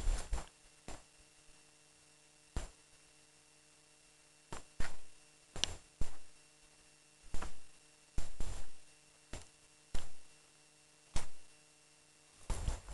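Footsteps on a concrete pad: about a dozen short knocks at uneven intervals, over a faint steady electrical hum.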